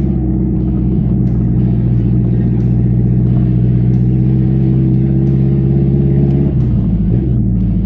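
Carbureted VW AP four-cylinder engine of a Ford Versailles pulling at steady revs while driving. The pitch drops about six and a half seconds in as the revs fall.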